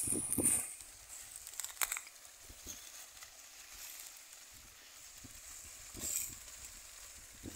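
Pigs rustling and crunching through dry, leafy plants as they forage, with a brief louder rustle about six seconds in and a sharp snap near two seconds; otherwise faint.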